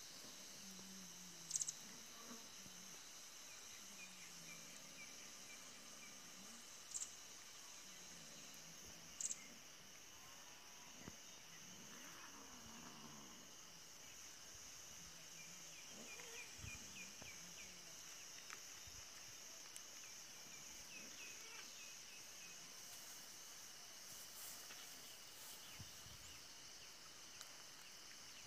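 Faint, steady high-pitched insect buzz, with three short, sharp high chirps in the first ten seconds and a few soft runs of small chirps.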